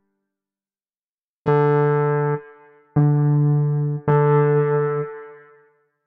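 Wavesequencer Theia software synthesizer playing its overdriven vintage electric piano preset. After a moment of silence, three chords sound about a second apart, and the last one is held and fades away.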